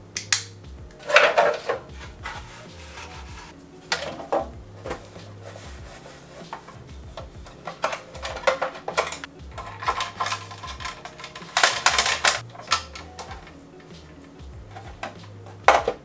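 Hard plastic parts of a pet water fountain clicking and scraping as the pump and housing are handled and fitted back together, in irregular clatters, the loudest about a second in and again near the three-quarter mark.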